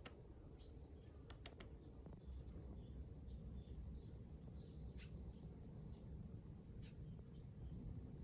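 Faint bird chirps with a high, short pip repeating evenly about every two-thirds of a second, over a low background rumble. A few sharp clicks about a second and a half in.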